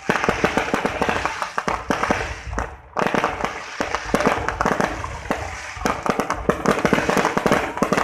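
Fireworks going off in a dense, rapid string of cracks and pops, with a brief lull about three seconds in.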